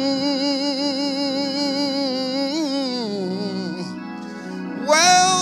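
A voice holding a long sung note with vibrato over sustained organ chords. The note slides down and fades about three seconds in, and near the end a second note swoops up and is held.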